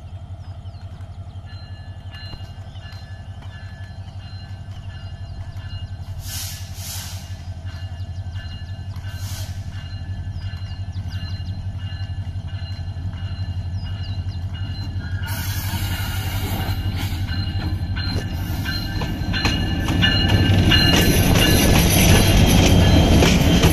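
Bangladesh Railway diesel-electric locomotive approaching slowly and passing close by. Its steady low engine drone grows louder throughout, with two short rushing noises about 6 and 9 seconds in. From about 15 seconds in, wheel-on-rail squeal and clatter join the drone, and the sound is loudest as the locomotive passes in the last few seconds.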